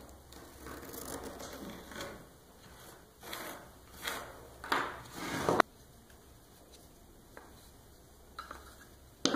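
Pencil scratching on a pine board as it traces around the edge of a wooden bracket, in short strokes that grow louder, the last four about two-thirds of a second apart. It cuts off abruptly a little past halfway, leaving only a faint hum and a couple of faint knocks.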